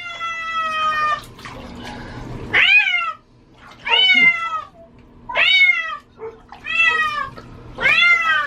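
Domestic cat meowing loudly and over and over, six long cries about a second and a half apart, each rising then falling in pitch: the distress of a cat that hates water being given a bath.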